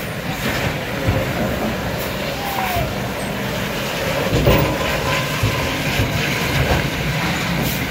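Hino tractor unit's diesel engine running steadily as it pulls a container semi-trailer slowly over a rutted mud road, with a few sharp knocks from the rig jolting over the ruts.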